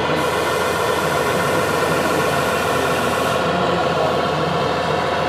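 O scale model railbus (Autorail Micheline) pulling away on narrow-gauge track with a steady diesel-engine running sound. A high hiss lies over it and cuts off about three and a half seconds in.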